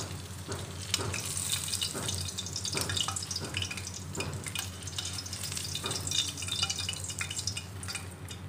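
Tofu blocks sizzling in hot oil in a stainless steel wok, the oil crackling steadily with many small pops while metal tongs lift the pieces out.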